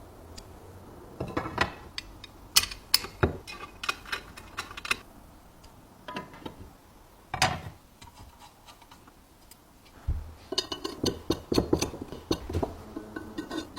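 Scattered metallic clinks and knocks of tools and metal parts being handled, with a quick run of rapid ticking and knocking about ten seconds in.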